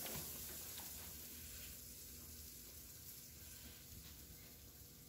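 Faint, steady sizzling of meat over a charcoal barbecue grill.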